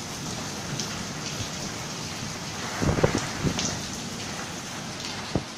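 Heavy rain falling steadily, a dense even hiss. A few dull thumps stand out about three seconds in, and there is one more just before the end.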